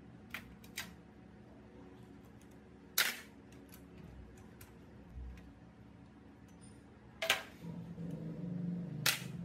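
Sharp clicks and knocks of tools or engine parts being handled, the three loudest about three, seven and nine seconds in. A low steady hum comes in after the second of those.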